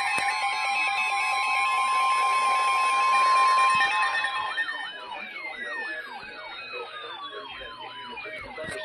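Emergency Alert System alert tones: several steady electronic tones layered together, with one long high tone held strongest. About four and a half seconds in they give way to quieter, fast wavering siren sweeps and long falling glides.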